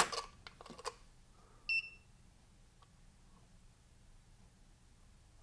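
A few light handling clicks, then about a second and a half in a single short electronic beep from a digital trigger pull gauge as it registers a pull, followed by quiet.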